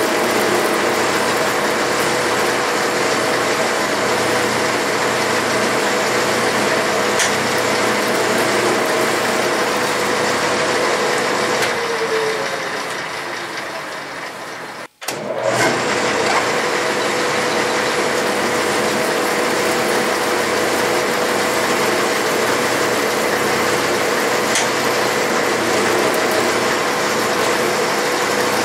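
Clausing metal lathe running steadily with the carriage power feed engaged, a constant machine hum and whine. About halfway through the pitch sags and the sound drops away, breaks off for an instant, then the steady running picks up again.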